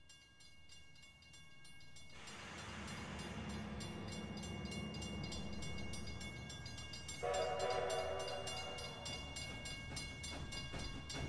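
A train rumbling, growing louder from about two seconds in, then a train horn sounding a chord for about two seconds, some seven seconds in.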